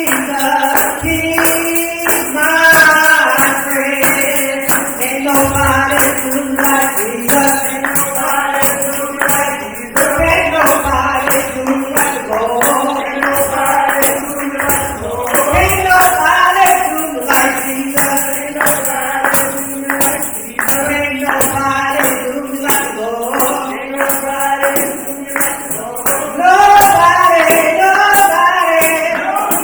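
Gospel praise singing with no instruments: a woman leads a song with other voices joining. Steady hand clapping and tambourine beat about two to three times a second.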